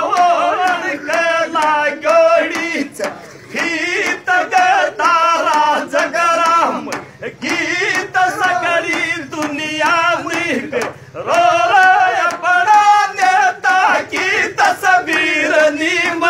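Men singing a Rajasthani dhamal folk song in phrases with short breaks, to strokes on a chang, a large hand-held frame drum.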